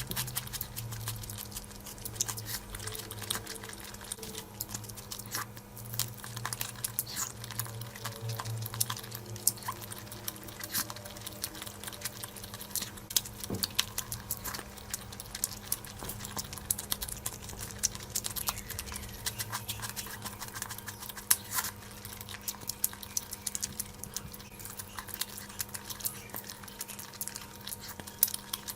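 Close-miked eating sounds of rice and curry: irregular wet chewing and small mouth clicks, with a faint steady hum underneath.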